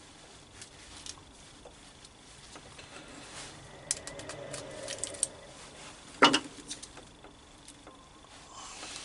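Light clicks and clatter of small tools and plug parts being handled, with one louder knock a little after six seconds in.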